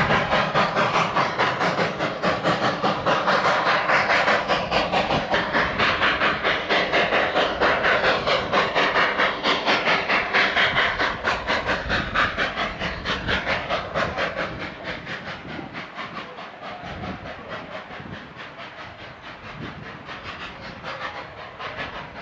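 Narrow gauge steam locomotive working, its exhaust chuffing in a fast, even beat with a hiss of steam, growing fainter from about fourteen seconds in.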